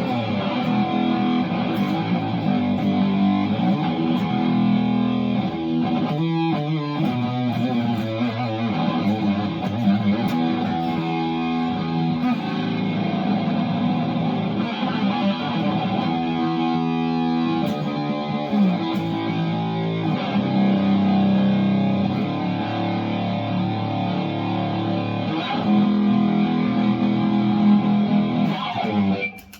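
Fender Telecaster Thinline electric guitar played through a fuzz tone: chords and riffs with a thick, saturated sound. It sustains throughout and stops abruptly at the end.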